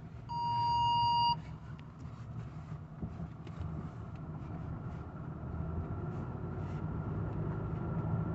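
A single steady electronic beep, about a second long, just after the start, over the low steady running of a vehicle engine and road noise heard inside the cab, which grows louder toward the end.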